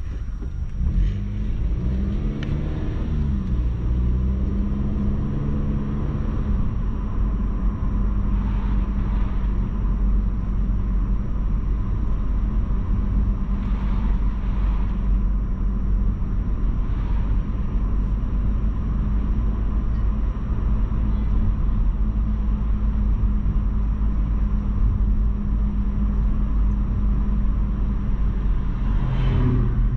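A car driving, with a steady low rumble of engine and road noise. The engine pitch rises over the first few seconds as the car speeds up, holds steady while it cruises, and drops near the end.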